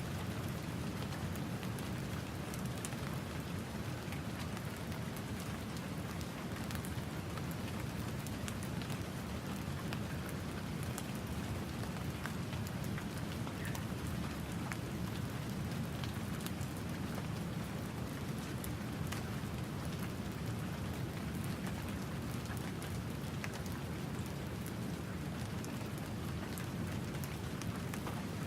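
Steady light tropical rain falling, a dense patter of fine drop ticks, over a low, even rumble of ocean surf breaking nearby.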